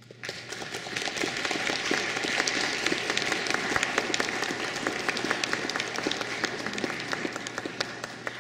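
Audience applauding: many hands clapping, swelling over the first couple of seconds and then tapering off near the end.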